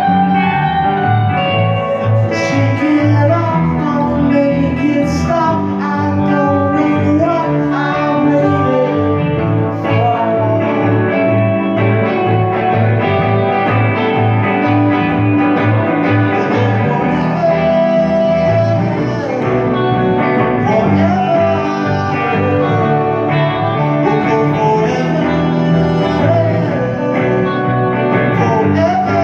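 Live band song played on electric guitars, with a man singing in stretches over the steady guitar rhythm.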